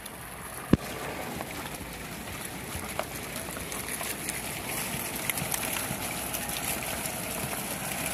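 A large flock of rams walking on a gravel road: the shuffle and many small clicks of hooves on gravel, with one sharp knock about a second in.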